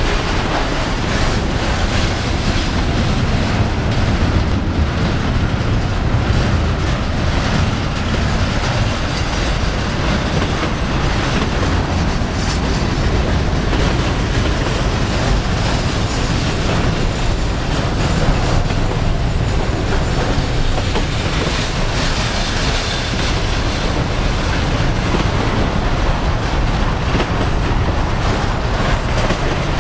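Intermodal freight train cars, container and trailer flatcars, rolling past close by: a steady, loud rumble and clatter of steel wheels on the rails.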